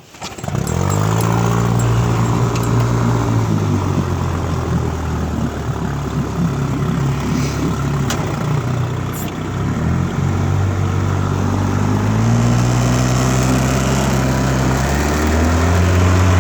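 1958 Johnson FD-12 18 hp two-cylinder two-stroke outboard motor coming up sharply about half a second in and climbing in pitch, then running at speed with its pitch dipping and climbing again twice.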